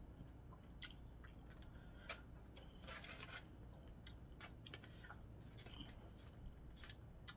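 Faint close-up eating sounds: chewing with scattered small clicks and crackles from working on seafood.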